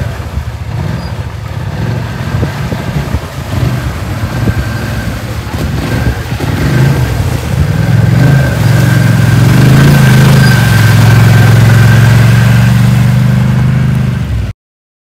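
ATV engine running as the quad drives through a shallow stream, getting louder as it comes close, with water splashing from its wheels. Cuts off suddenly near the end.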